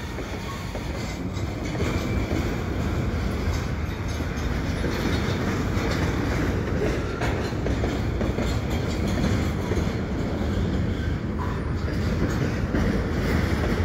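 Double-stack container well cars rolling slowly through the yard as they are shoved into storage tracks, a steady continuous running noise of wheels on rail.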